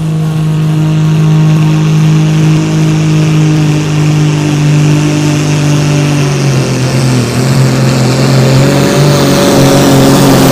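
Modified Super Sport pulling tractor's diesel engine running flat out under load during a pull. Its pitch holds steady, then sags about two-thirds of the way through, and the sound grows louder toward the end.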